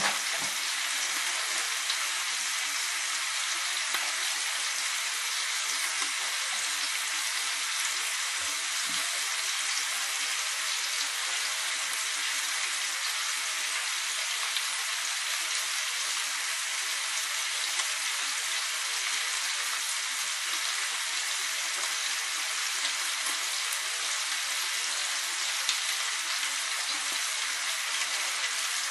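Meat sizzling steadily in a frying pan.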